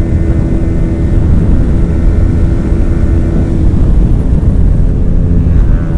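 Yamaha R15's single-cylinder 155 cc engine running hard at steady high speed, with heavy wind rush on the microphone; the steady engine note fades about halfway through.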